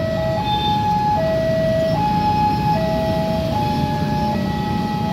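Electronic two-tone railway level-crossing alarm sounding steadily. It switches between a lower and a higher tone about every three-quarters of a second, warning that a train is approaching the closed crossing. Road traffic rumbles beneath it.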